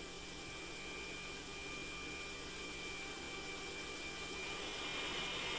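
Faint steady electrical hum and hiss of an open radio intercom channel, with a thin high whine held steady.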